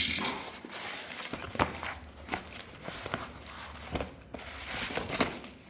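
Parcel packaging being handled: a burst of rustling at the start, then scattered light taps and knocks of cardboard and plastic.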